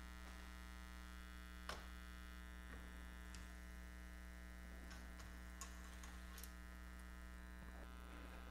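Near silence: a steady electrical mains hum with its evenly spaced overtones, broken by a few faint light taps, the clearest about two seconds in and another near six seconds.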